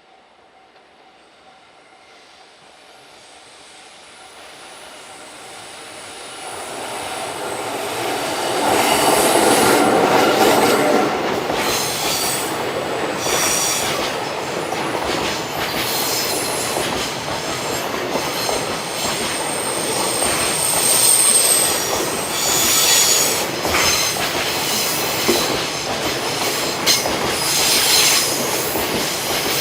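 Freight train approaching and growing steadily louder over about eight seconds, then rolling past with high-pitched wheel squeal and the repeated clack of its wheels over the rail joints.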